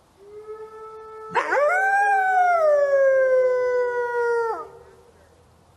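Wolf howling: one long howl that swoops up about a second and a half in, holds, then slowly falls and cuts off, over a fainter, steadier howl underneath.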